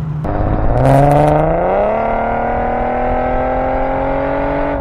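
Infiniti Q50's engine through its new aftermarket exhaust, heard with the window down as the car accelerates. The pitch climbs steeply for about two seconds, then keeps rising more slowly, and the sound falls away suddenly near the end.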